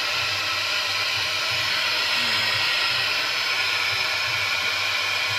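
Steady loud hiss with a faint low hum underneath, from the speaker of a Sony DVD player whose sound output works again after a faulty transistor was replaced with a C1815.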